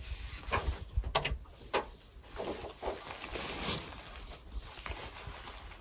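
A run of short rasps and scrapes at irregular intervals, more of them in the first few seconds: nylon tent straps being pulled tight through their buckles, with the tent fabric rustling.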